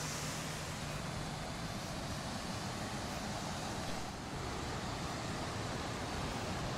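Steady beach ambience: surf washing on the shore with a constant rush of wind.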